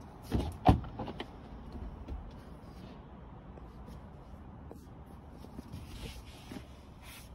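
Rear door of a car unlatched at its flush handle and swung open: two sharp clicks about half a second in, the second loudest, then faint knocks and handling noise.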